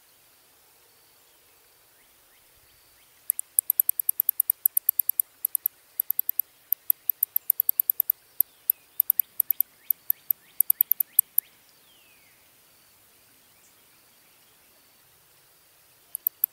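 Big brown bat (Eptesicus fuscus) giving a rapid run of short, very high-pitched clicking chirps, several a second, from about three seconds in to past eleven seconds, with faint falling squeaks mixed in late in the run. A short burst of the same clicks comes again near the end.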